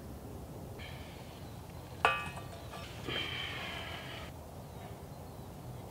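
A small metal pot clanks once with a short metallic ring about two seconds in. Then liquid is flung out of the pot onto the ground.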